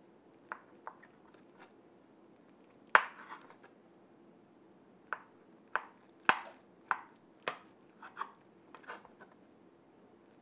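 A serrated metal server cutting through baked pastitsio in a cast iron skillet: scattered sharp clicks and scrapes as the blade knocks against the pan, the loudest about three seconds in and a cluster of them from about five to nine seconds.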